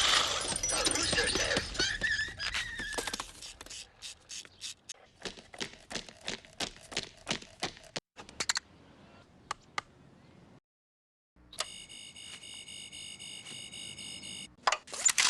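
A string of separate film sound effects. A dense noisy clatter runs for about three seconds, then a run of sharp clicks or knocks comes two to three a second. After a short dead silence, a steady high electronic buzz like an alarm holds for about three seconds, and a loud burst hits at the end.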